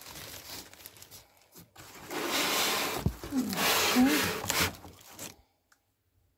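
Thin plastic bag rustling and crinkling as it is handled and pulled back off a plastic barrel lid. There is a light bout at the start and a louder one from about two seconds in, which stops suddenly a little after five seconds.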